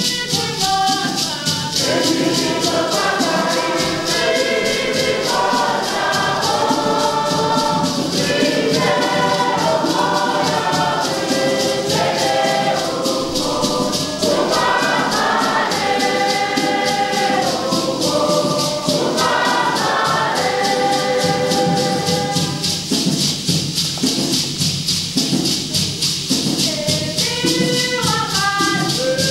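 Congregation singing a hymn together in parts, with hand rattles shaken in a steady beat throughout.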